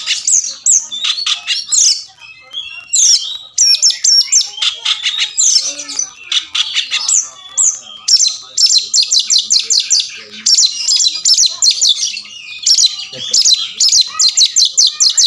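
Oriental magpie-robin singing loudly and without pause. It gives varied whistled and chattering phrases, then from about halfway breaks into rapid runs of repeated sharp notes, about eight a second. This is the loud territorial fight song of a male in full voice.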